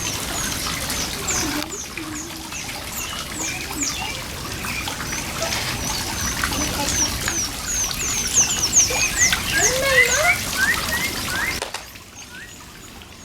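Water trickling steadily in a backyard fish pond, with many quick high-pitched bird chirps over it that grow busier near the end. The sound drops away suddenly about a second before the end.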